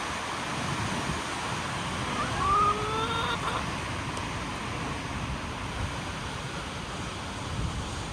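Strong wind blowing across the microphone, a steady rushing with low gusty rumble. About two seconds in, a hen gives one short call that rises slightly in pitch.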